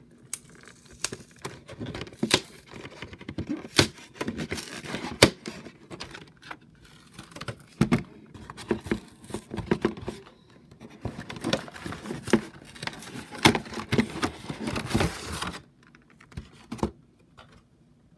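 A cardboard collection box and its clear plastic tray being opened and handled: irregular crinkling and crackling with many sharp clicks and knocks, dying down about fifteen seconds in.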